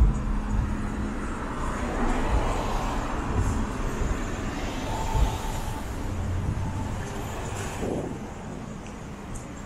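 Cars passing on a city street: steady tyre and engine traffic noise that swells about two seconds in and fades after about eight seconds.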